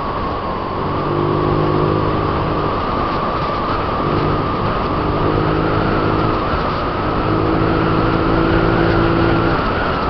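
Honda Click 125i single-cylinder scooter cruising at a steady speed: a loud, steady rush of wind and road noise on the camera's microphone, with a steady engine hum that fades in and out in stretches.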